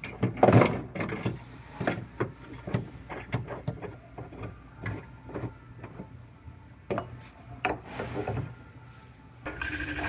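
Metal clinks and knocks of a body-shop pulling clamp being fitted and screwed tight onto a car's sheet-metal floor pan, with a loud knock about half a second in. A steadier mechanical noise starts just before the end.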